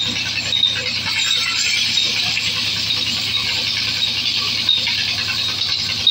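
Large vertical band saw cutting through a log: a steady, high-pitched hiss of the blade in the wood over a low, even motor hum.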